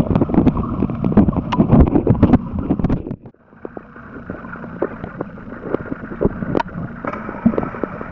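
Underwater camera sound: rushing water noise with many sharp clicks and knocks. It drops off abruptly about three seconds in to a quieter hiss with scattered clicks.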